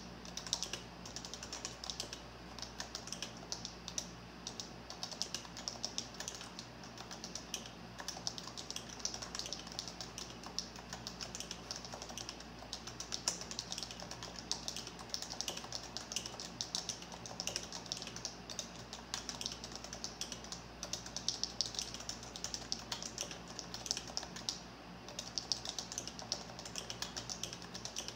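Continuous fast typing on a Kinesis Freestyle Edge split mechanical keyboard: a dense run of key clicks and clacks, with a short lull near the end.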